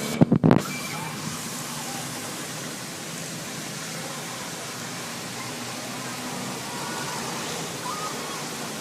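Steady rush of heavy rain and running floodwater. A brief loud bump comes right at the start.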